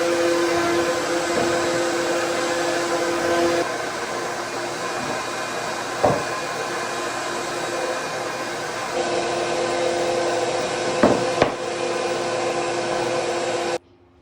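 An electric power tool's motor running steadily with a steady hum, which drops about three and a half seconds in and comes back about nine seconds in, with a few sharp knocks about six and eleven seconds in. It cuts off suddenly near the end.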